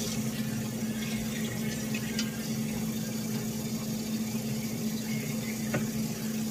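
Water running steadily from a kitchen sink tap.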